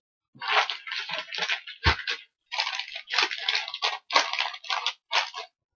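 Clear plastic packing wrap crinkling and rustling as it is pulled and handled, in a quick run of bursts, with one dull thump about two seconds in.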